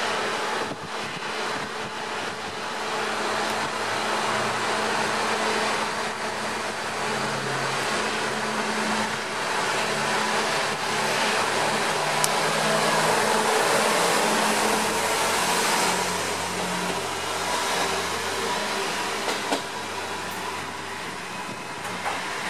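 KiHa 200 diesel railcar pulling out under power, its engine note shifting in steps as it gathers speed. It is loudest as it passes close by about two-thirds of the way through, then fades as it draws away.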